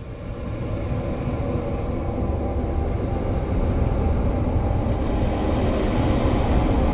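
Experimental noise-drone music: a dense, low rumbling wash of noise that swells in over the first second or so and then holds steady, growing brighter in the upper range about five seconds in.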